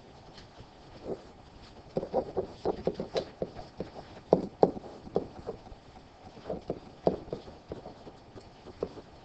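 Pen stylus tapping and scraping on a tablet screen while handwriting: an irregular run of short clicks and knocks, densest in the middle.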